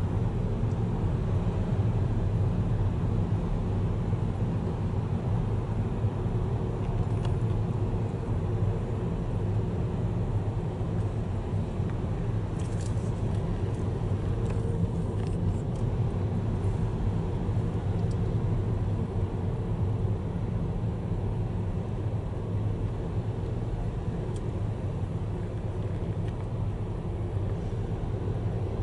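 Steady low rumble of a car driving through a road tunnel, heard from inside the cabin: engine and tyre noise on the roadway.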